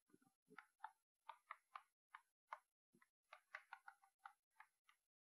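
Chalk on a blackboard while writing: a string of faint, irregular ticks and taps, about a dozen, as the stick strikes and scrapes across the board.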